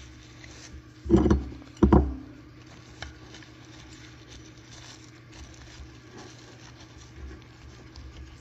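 Saran wrap crinkling and plastic switch parts ticking as a plastic-wrapped switch is handled and fitted back together. Two short thumps come about a second and two seconds in.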